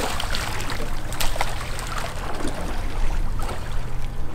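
Water splashing and sloshing at the surface beside a boat, with a steady low hum underneath.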